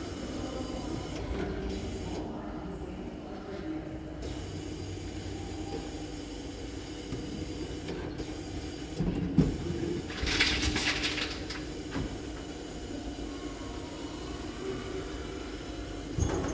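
Reverse vending machine for bottle and can deposits running with a steady mechanical hum, with knocks about nine seconds in, a brief rushing clatter just after, and another knock near the end.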